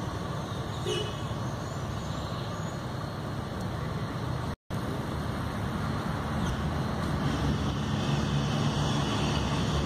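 Steady low rumble of road traffic, with a brief cut to silence about halfway through.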